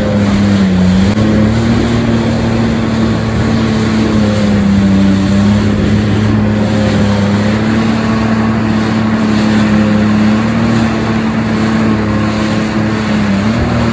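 Jet ski engine running steadily at speed, its pitch dipping briefly about a second in, over a constant rush of wind and water spray.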